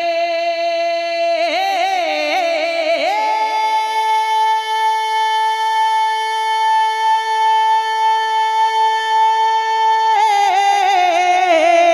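A male naat reciter singing unaccompanied into a microphone, stretching one syllable into a long drawn-out note: a held tone, a wavering run upward about a second and a half in, then a higher note held steady for about seven seconds before it wavers back down near the end.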